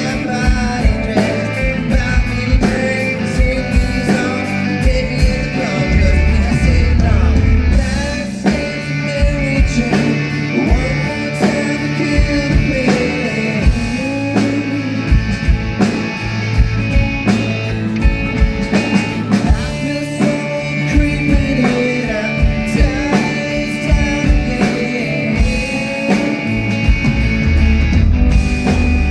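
Live band playing a pop-rock song through a venue PA: drum kit keeping a steady beat under bass and electric guitar, with a sung melody line.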